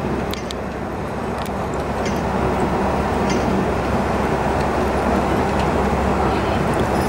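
Steady road noise of a car travelling at highway speed: tyre and engine noise with wind, and a few faint clicks.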